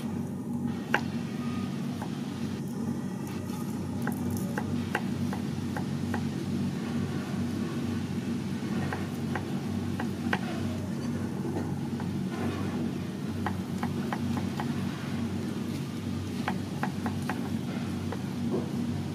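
Knife slicing garlic cloves on a wooden chopping board: a run of quick, sharp taps, over a steady low hum.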